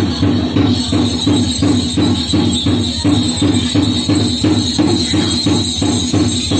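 Percussion-led music for the Minahasan Kabasaran war dance, driven by a fast, steady beat of sharp strokes over a sustained low tone.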